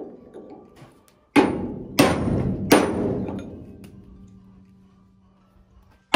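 Hammer blows on steel at the straw-chopper bearing of a Bizon Z056 combine: three ringing metallic strikes about two-thirds of a second apart, the ring dying away slowly, then a fourth strike at the very end. The blows are meant to knock out a stuck, rusted bearing.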